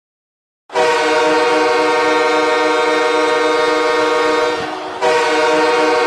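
Milwaukee Admirals' arena goal horn: a loud, steady chord of several tones. It starts under a second in, sounds for about four seconds, dips briefly, and blasts again at about five seconds.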